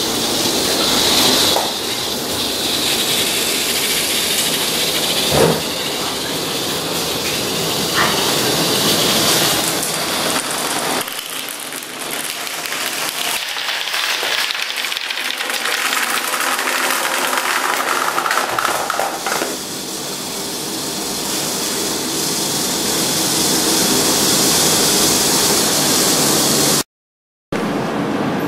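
Homemade chain-reaction machine running: a steady rolling, rattling noise of parts and marbles moving along its tracks, with a few sharp knocks. It breaks off for a split second near the end.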